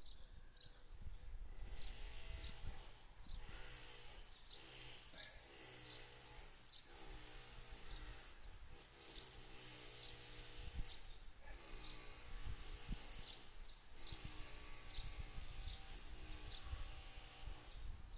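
An animal calling again and again, each call short and pitched, roughly one every second or two, over a low rumble, with faint high chirps between the calls.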